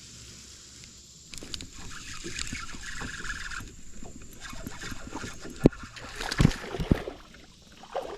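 Creek water splashing and sloshing, starting about a second in, with three sharp splashes or knocks near the end.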